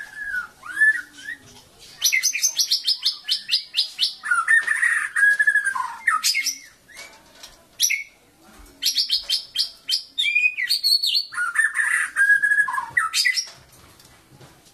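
White-rumped shama singing: two song bouts, each a fast run of high, evenly repeated notes leading into lower, rich warbled whistles, with a few short sharp notes between the bouts.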